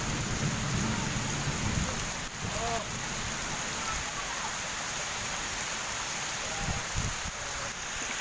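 Heavy tropical rain falling steadily on leaves and muddy ground.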